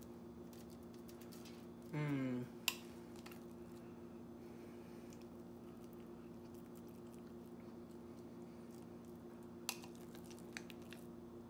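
A metal spoon scooping mashed potato out of a glass measuring cup and spreading it, with a few light clicks of the spoon, over a steady low hum. About two seconds in, a short vocal sound falls in pitch.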